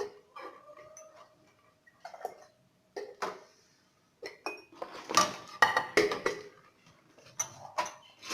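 Kitchen dishes and utensils being handled, with scattered clinks and knocks, then a busier stretch of loud clattering from about halfway through.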